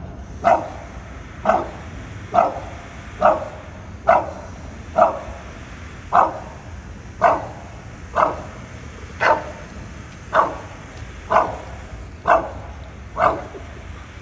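Bulldog barking up into a tree at something it has spotted there: one short, even bark about every second, fourteen in all.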